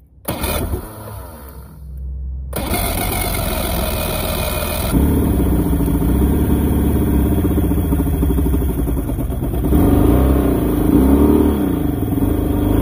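Mercury inline-six two-stroke outboard, carburetted, being started: it fires briefly, drops out, then catches about two and a half seconds in and runs, with the revs swinging up and down near the end. It is being run to burn the last fuel out of its three carburettors before winter storage.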